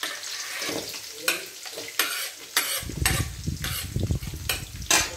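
Hot oil frying in an aluminium kadai as chopped onions are scraped off a wooden board with a steel spoon and tipped into it: a steady sizzle with several sharp clinks and scrapes of the spoon, and a low rumble in the second half as the onions go into the pan.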